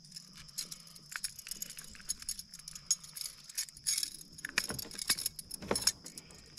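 Light metallic clinking and jingling, irregular and scattered, of a buzz bait and its hooks being handled.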